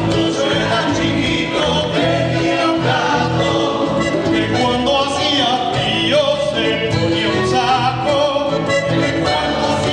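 Live song performance: singing voices over instrumental accompaniment.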